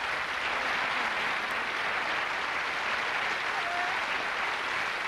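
Studio audience applauding: many hands clapping in a steady, even patter.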